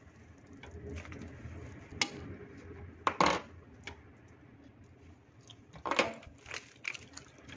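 A spatula scraping and knocking against a metal pot and tray while sticky cooked rice is scooped out: a few separate clinks and scrapes, the loudest a little past three seconds in and another about six seconds in.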